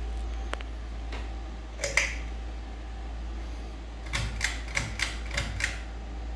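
Ceiling fan running with a steady low hum, with sharp clicks: a double click about two seconds in and a quick run of about six clicks later on.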